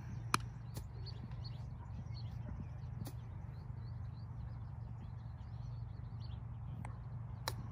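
Faint birds chirping over a steady low outdoor rumble, with a sharp click shortly after the start and another near the end.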